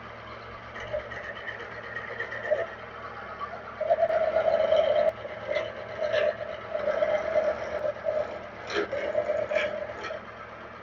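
Milling machine running with a face mill cutting across a metal workpiece: a steady machine hum under the fluctuating sound of the cut, louder for about a second from roughly four seconds in, with a few sharp clicks near the end.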